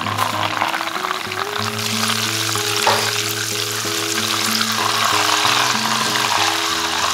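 Butter boiling and sizzling in a saucepan while a spatula stirs it, noisy like rain. The water in the butter is boiling off, an early stage of browning the butter.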